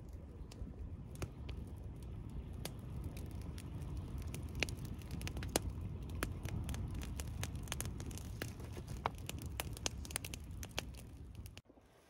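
Wood campfire of stacked dry branches crackling, with many sharp, irregular pops over a low steady rumble as the flames catch and grow.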